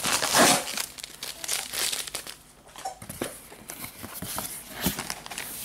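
Cardboard box flaps and paper inside rustling and crinkling as the box is opened and its contents handled. The sound comes in short irregular bursts, loudest just after the start.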